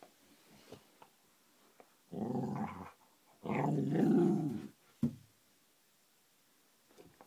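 Cardigan Welsh corgi making an odd growling, purring bark twice: a short one, then a longer, louder one. It is a playful noise made while handing over a tennis ball, not an aggressive growl.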